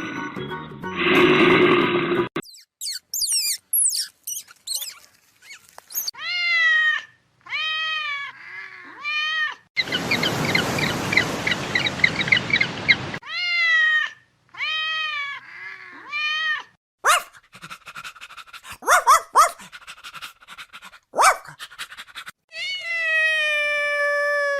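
A run of different animal calls cut one after another. It opens with a low, rough stretch, then come high arched calls in groups of three and a harsh noisy stretch in the middle. Near the end there is one long falling call.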